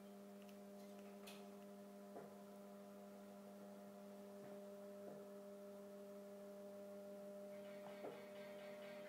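Faint, steady electrical hum with a few even overtones, broken by a few faint clicks; faint music begins to come in near the end.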